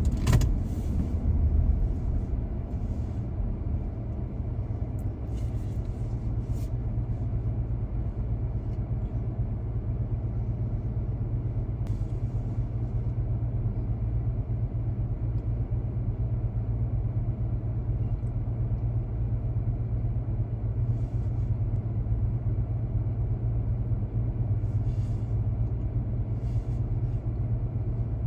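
Car driving along city streets: a steady low rumble of engine and tyres on the road, with a few brief clicks or knocks now and then.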